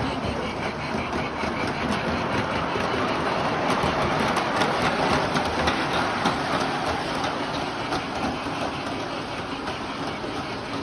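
Large-scale model train running along its track past close by, getting louder in the middle and then easing off, over a steady background noise.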